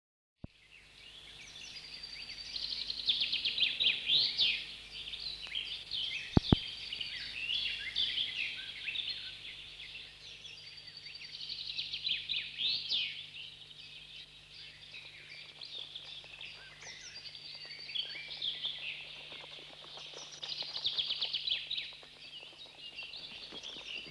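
Songbirds singing in a dense chorus of chirps and trills that swells and fades in waves, over a steady low hum. There is one sharp click about six seconds in, and near the end the hoofbeats of several horses come in.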